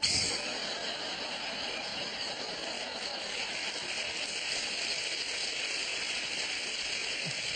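Studio audience applauding and laughing, starting suddenly and holding steady.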